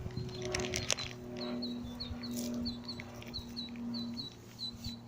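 A bird chirping in a quick run of short high notes, about four a second, over a steady low hum. A brief crackle comes about half a second in.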